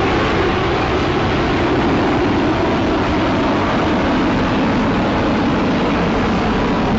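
Jet aircraft engines running loud and steady: an even, unbroken rushing noise with no change in level.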